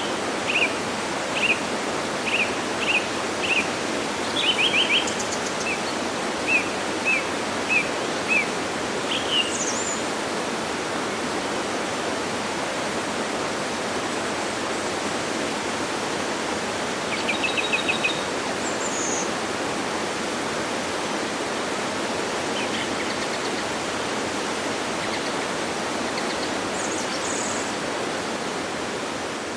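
Steady rushing of a waterfall, with a bird calling over it: a run of short, evenly spaced chirps through the first eight seconds or so, then a couple of brief trills and a few high calls. The water fades slightly near the end.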